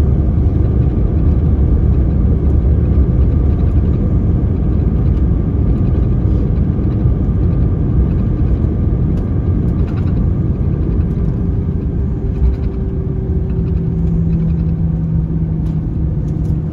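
Cabin noise inside an Airbus A321ceo on the ground just after landing: a loud, steady rumble of the wheels and engines that slowly eases as the jet slows. A steady engine hum comes through in the second half.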